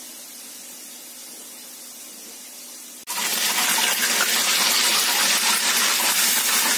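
Chebureki deep-frying in a pan of hot oil: a steady sizzle that turns suddenly much louder and fuller about three seconds in, while the pastries are turned over in the oil with a fork.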